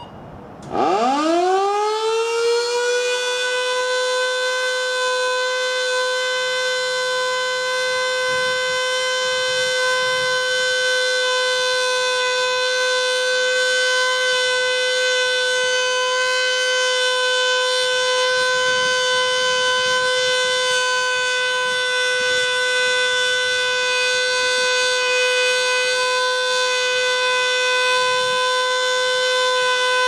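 Federal Signal Model 2 outdoor warning siren winding up about a second in, its pitch rising quickly, then holding one steady tone during its monthly test.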